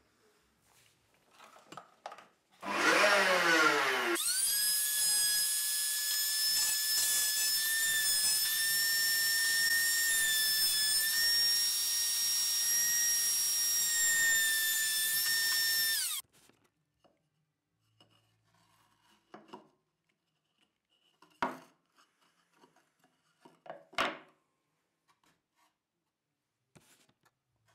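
Table-mounted wood router starting up about two and a half seconds in, its motor rising quickly to full speed, then running with a loud, steady high whine while a plywood strip is fed against the bit; it stops abruptly about sixteen seconds in. Two sharp knocks follow later.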